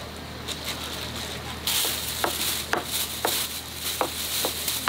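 Kitchen knife chopping boiled pork offal on a plastic cutting board. Regular knocks come about two a second from about two seconds in, over a steady hiss that starts at the same time.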